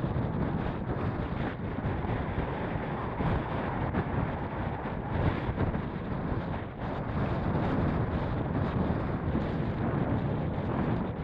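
Strong wind buffeting the microphone: a steady, dense rush of wind noise with no engine or voice in it.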